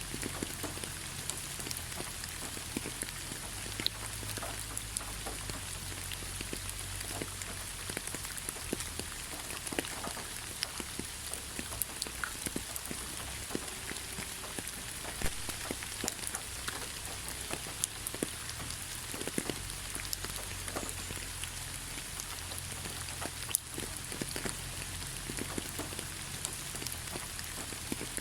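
Steady rain falling, with many separate drops ticking close by over a continuous hiss.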